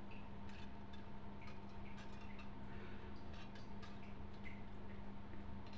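Faint, scattered small clicks and ticks as the lid of a United stainless-steel pressure cooker, with a little pressure still inside, is handled and opened, over a steady low hum.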